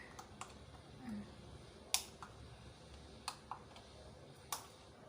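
Light plastic clicks and taps, about six spaced irregularly with the sharpest one about two seconds in, from the small plastic parts and batteries of a wireless doorbell being handled while someone tries to work out where the battery fits.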